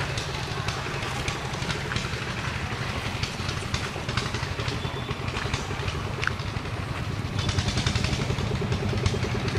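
An engine running steadily at a constant speed, a low hum with a fast, even pulse.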